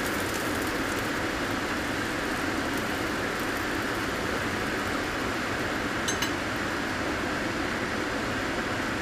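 Oil sizzling steadily in a frying pan, too hot: the breaded bass fillets in it are burning. A couple of light metal clinks about six seconds in.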